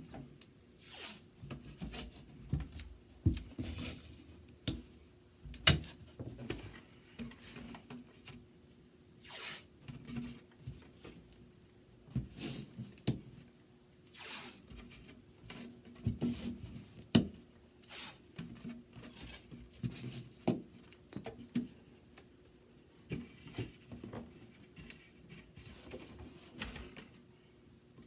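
Painter's tape being pulled off the roll in short rasping strips, with scattered taps and knocks from handling a wooden drawer.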